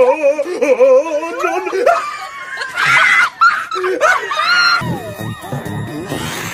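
A person's exaggerated wavering cries and laughter-like vocalizing, rising into high squeaky cries. About five seconds in, music with a steady beat starts.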